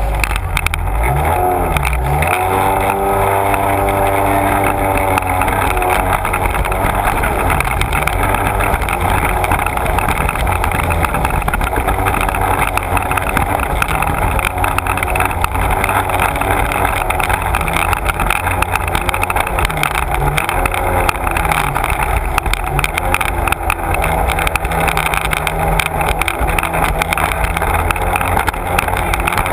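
Sea-Doo personal watercraft running at speed, its engine and jet drive going steadily under the rush of water spray, the pitch dipping and rising a few times.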